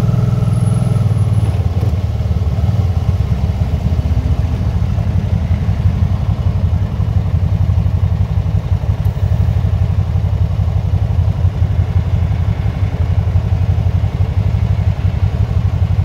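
Can-Am motorcycle engine idling steadily, an even low-pitched run with no revving.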